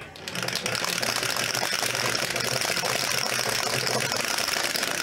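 Two dice rattling rapidly and without a break against the clear plastic dome of a dice roller. The rattle starts just after the beginning.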